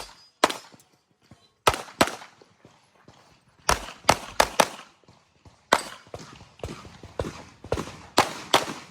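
Handgun fired rapidly, about a dozen sharp shots with a short echo after each. Many come in quick pairs, the double taps of a shooter engaging targets on an IPSC practical-shooting stage.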